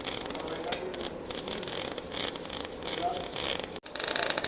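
MAG welding arc crackling and buzzing steadily as the wire feeds into the weld pool, with a brief gap near the end.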